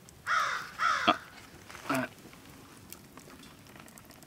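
A bird's harsh calls, three in about two seconds, each falling in pitch.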